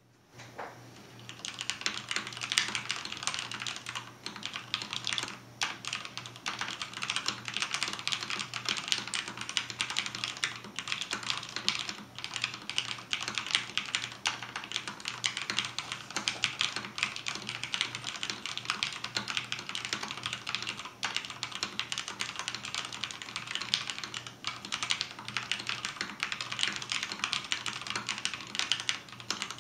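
Fast, continuous typing on a mechanical keyboard with Cherry MX switches, its rubber-tipped feet raised, which changes how it sounds; it starts about a second in, with a few brief pauses.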